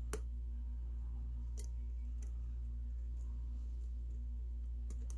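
A few scattered small clicks of a lock pick and tension wrench working the pin stacks inside a solid brass Ace padlock, over a steady low hum.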